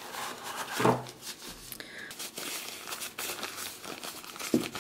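Thin white paper wrapping crinkling and rustling in the hands as a small camera is lifted out of its cardboard box and unwrapped, in short irregular crackles.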